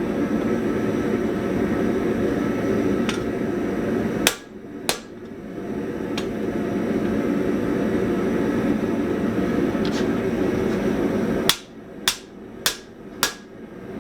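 Hand hammer striking hot steel on the anvil while forging an offset into an anvil-shear blade: two blows about four seconds in, lighter taps in between, then four blows about half a second apart near the end, over a steady rushing noise.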